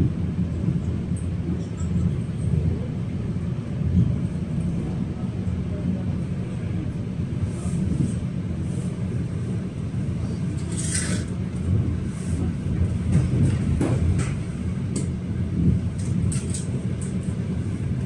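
Steady low rumble of a commuter electric train running, heard from inside the carriage, with a few short clicks and a brief hiss about eleven seconds in.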